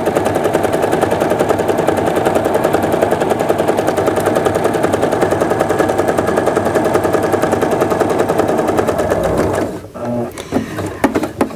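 Electric sewing machine running at a steady speed, its needle stitching a seam through cotton fabric with a rapid, even chatter. It stops abruptly near the end, followed by a few light knocks.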